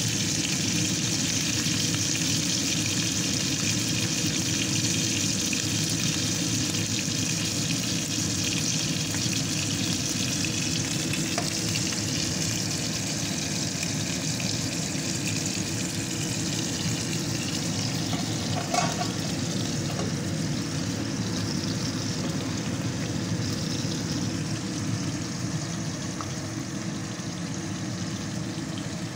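Steak sizzling in hot fat in a frying pan, a steady frying hiss throughout. A single short sharp sound about nineteen seconds in.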